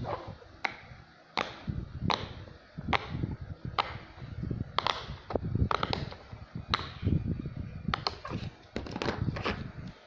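A run of sharp clicks and taps at an uneven pace, about one or two a second, over low bumps like something being handled.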